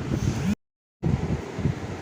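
A low rumbling noise of the kind that wind or handling makes on a microphone, cut by half a second of dead silence a little after it starts.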